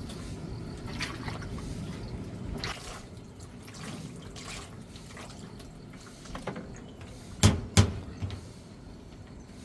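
Water dripping and trickling, with two sharp knocks in quick succession about three-quarters of the way through.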